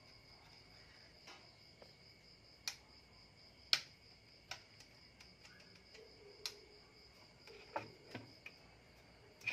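A faint, steady, high-pitched cricket trill, with about six sharp clicks and light knocks scattered through as the opened Qioa voltage stabilizer is handled.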